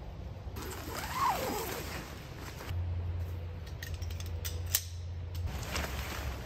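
Shock-corded tent pole sections being unfolded and clicking together, with a sharp click near the end. A short falling squeak comes about a second in, and a low steady hum runs through the middle.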